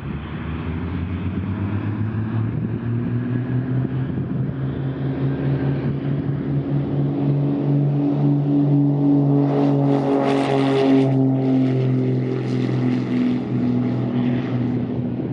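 Twin Continental piston engines and propellers of a 1969 Beechcraft Baron D55 at full takeoff power as the plane rolls down the runway and lifts off. The steady engine drone grows louder as it nears, peaks about ten seconds in as it passes, and drops slightly in pitch as it moves away.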